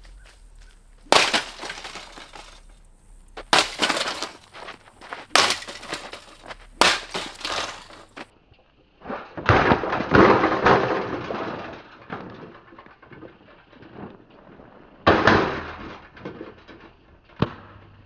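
Plastic housing and grille of a Lasko box fan being smashed: a series of sharp cracks and crunches of breaking plastic, one every second or two, with a longer stretch of crunching about halfway through.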